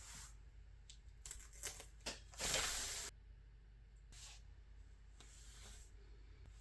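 Duct tape being worked by hand: a few short crackling rips, then a longer rip of tape pulled off the roll about two and a half seconds in, lasting under a second.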